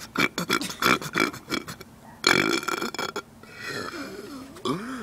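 A man belching on purpose. A quick run of short bursts opens the stretch, then a loud belch of about a second comes about two seconds in, followed by a quieter, drawn-out belch whose pitch wavers up and down.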